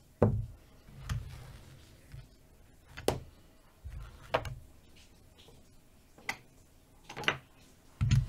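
Casino chips clicking against each other as they are picked up, stacked and set down on a craps layout: a string of sharp, separate clicks, about one every second, unevenly spaced.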